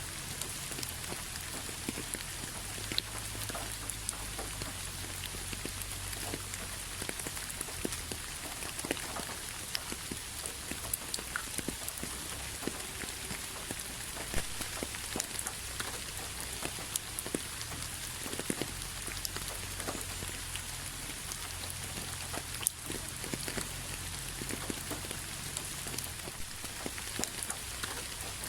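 Steady rain falling on a hard surface, a constant hiss with many separate drops ticking through it.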